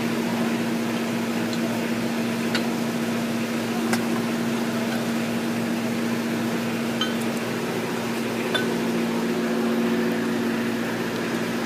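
Steady machine hum, like an electric fan or motor running in the workshop, with a few faint light metallic clicks from engine parts being handled as the crankshaft is turned to test the newly fitted connecting rod cap.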